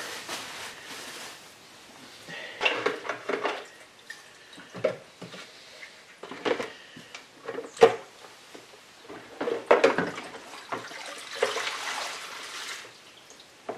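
Petrol sloshing, splashing and dripping as a cast-iron lathe gearbox is handled and lifted in a plastic tub of petrol, in irregular bursts with a few sharp knocks.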